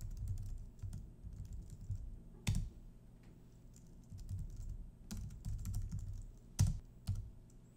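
Typing on a computer keyboard: quick, irregular key clicks, with a few harder keystrokes about two and a half seconds in and again near the end.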